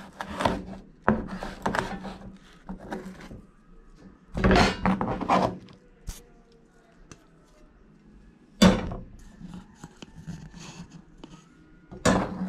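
Knife slicing nopal cactus pad into small pieces, knocking irregularly against a cutting board, with a sharp knock about two-thirds of the way through and another near the end.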